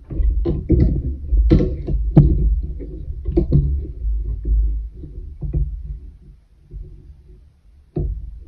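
Hands and a metal weaving needle working yarn on a wooden pin loom: low rubbing and thumps against the frame and table, with scattered sharp clicks and knocks, one near the end.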